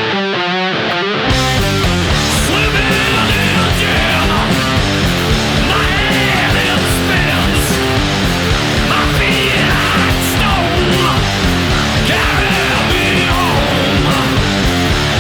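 Stoner rock recording: a lone electric guitar plays for about the first second, then drums, bass and distorted guitars come in together and carry a heavy riff, with a high line bending in pitch above it.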